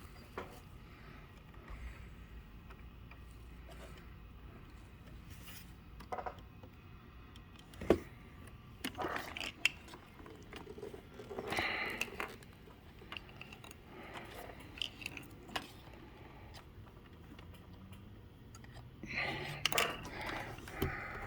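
Scattered clicks, knocks and scrapes of small objects being handled, with one sharp click about eight seconds in.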